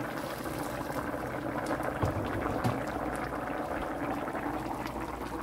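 Boiling water from an electric kettle pouring in a stream into a stainless steel pot of simmering chicken broth; the pour stops partway through, leaving the broth bubbling.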